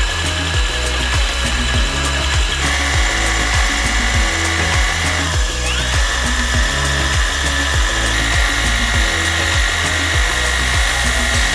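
Cordless drill driving a core drill bit into a wall, its motor whine steady apart from a dip and recovery in pitch about five seconds in, under background music with a steady beat.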